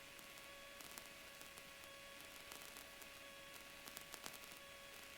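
Near silence: a faint, steady hiss of static with a thin, steady hum and a few scattered faint clicks on the headset and radio audio line between transmissions.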